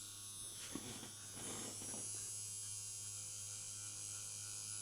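Hornby Class 43 HST model locomotive's small electric motor running steadily, with a faint high whistling whine over a low hum. The whine comes from the motor itself, which sounds iffy.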